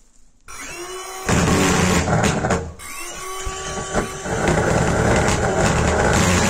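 A thermal fogging machine's pulse-jet engine being started. A rising whine comes about half a second in, then the engine fires with a loud rushing noise that dips briefly midway, takes up again with another rising whine, and settles into a steady, loud run.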